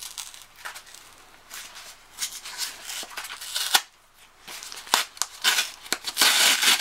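Cardboard DVD mailer being torn open by hand: short scratchy scrapes and rustles of cardboard, then a longer tearing rip near the end as the tear strip is pulled.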